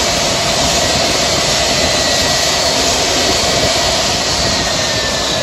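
Jet turbine noise from a parked Boeing 757-200: a loud, steady roar with a thin high whine running through it.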